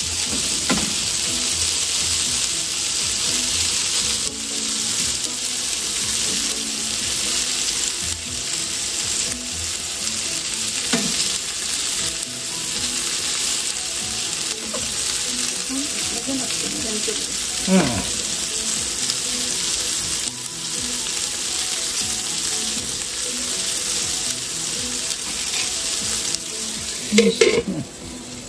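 Food sizzling in a hot frying pan, a steady hiss with an occasional knock of a utensil against the pan. Near the end there are a few clatters, and the sizzle drops sharply.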